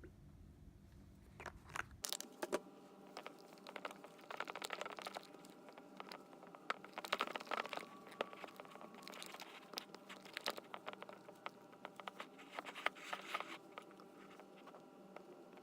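Faint, irregular crackling and squishing as a mixing tool stirs a sticky fluffy-slime mixture of glue and shaving foam in a bowl.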